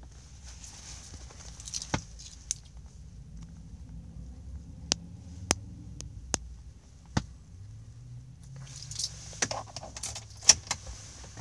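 Metal keys clinking and jangling inside a car cabin: scattered single clicks, then a busier burst of jingling near the end.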